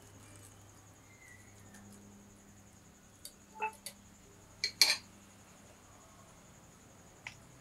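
A few light clinks and knocks of kitchen utensils, the loudest a quick pair of clatters about five seconds in and one more tap near the end, over a cricket's steady high trill.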